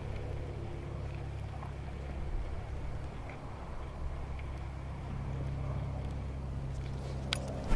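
A small boat motor pushing a kayak, humming steadily at low pitch. Two sharp clicks come near the end.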